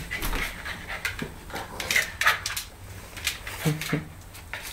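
A Siberian Husky puppy and a German Shorthaired Pointer play-fighting on a tile floor: scuffling, with quick clicks of claws on the tiles, and a brief low vocal sound, a growl or voice, about three and a half seconds in.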